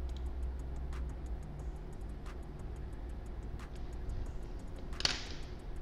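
Faint, even ticking, several light ticks a second, over a low steady hum, with one sharper click about five seconds in, fitting a computer mouse click.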